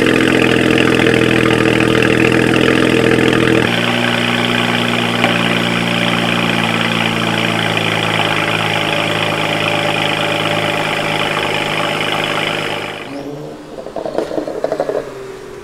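Twin-turbo BMW 335i straight-six (N54) running loud just after a cold start, first at a fast idle that steps down to a lower, steady idle about four seconds in. The engine note gives way to a quieter, different sound near the end.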